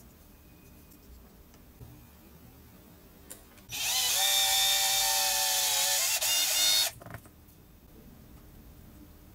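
Cordless drill running for about three seconds, its motor whining at a steady pitch as a twist bit bores through a small balsa wood block, with a brief dip partway through. A few faint handling clicks come before and after.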